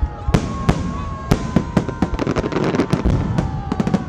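Aerial fireworks shells bursting overhead: a quick string of sharp bangs, packed most closely together in the middle.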